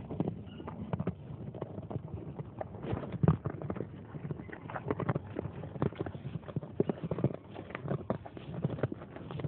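Cows eating corn: an irregular run of crunching and knocking as they bite and chew.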